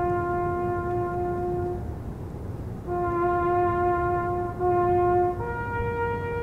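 A lone brass horn playing slow, held notes: one long note ends, a pause, the same note sounds twice more, then it steps up to a higher note held on.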